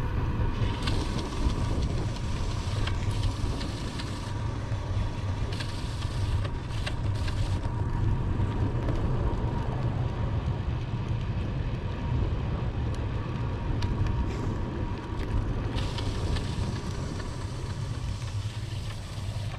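Wind rumbling on the microphone of a bicycle-mounted camera while riding, with steady road noise and a few light rattles.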